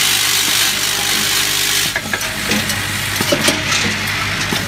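Vibratory bowl feeders of a hardware counting and packing machine running: a steady electric hum under a dense, sizzling rattle of steel screws and washers jostling around the stainless bowls, with scattered small clicks. The rattle is loudest in the first two seconds.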